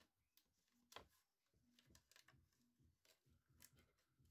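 Near silence, broken by a few faint light knocks from handling the wicker chair frame, the clearest about a second in and another near the end.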